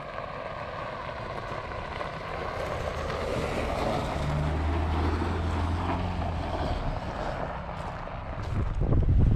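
A distant motor humming steadily under a broad haze of noise, slowly growing louder. Wind buffets the microphone near the end.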